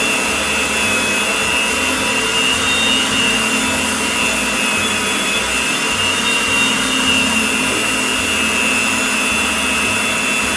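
Electric stand mixer running steadily, beating a thick cake batter, its motor giving a constant high whine.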